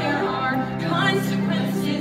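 Musical-theatre song: a young woman singing over live instrumental accompaniment, with held notes.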